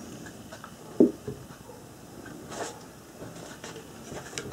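Objects being handled and put down. A single dull knock comes about a second in, with a lighter knock just after, then soft rustling and small clicks.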